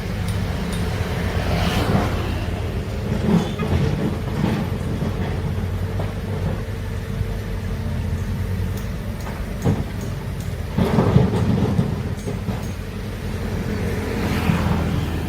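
Heavy diesel earthmoving machinery running steadily under load, with a low engine drone and several short clanks and scraping swells scattered through.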